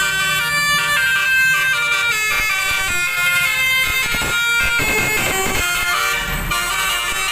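Multi-tone telolet air horn playing a melody of several stepped notes. Vehicle engine and road noise come up about halfway through.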